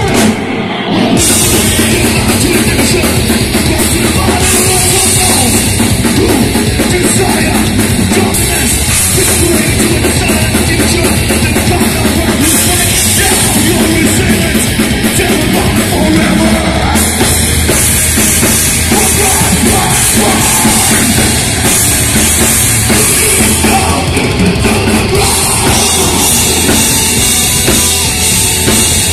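Heavy metal band playing live at full volume: distorted electric guitars, bass guitar and a pounding drum kit with crashing cymbals, with a short break just after the start before the band slams back in.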